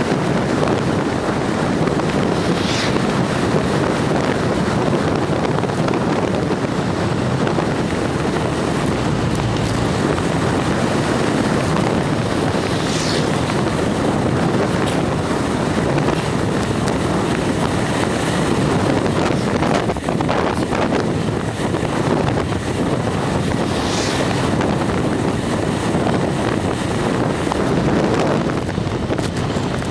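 Steady wind noise buffeting the microphone of a camera moving along a road. Three brief higher hisses come and go along the way.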